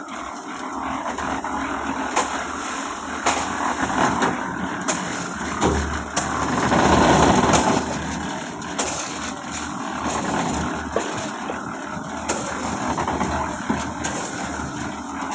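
Construction-site noise: an engine running steadily, with scattered sharp knocks and clicks, growing louder for a second or two around the middle.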